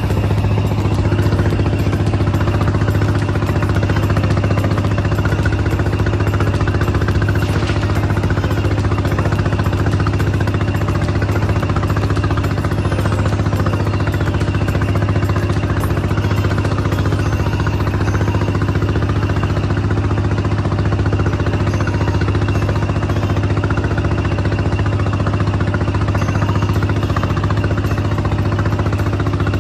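Inboard engine of a small outrigger fishing boat running steadily under way, a constant low drone.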